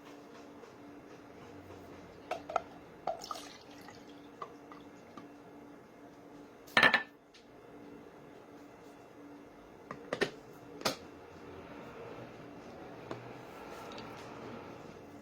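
Small plastic humidifier being handled: scattered light clicks and knocks of its plastic parts, one loud knock about seven seconds in, and water dripping and trickling, a little more toward the end.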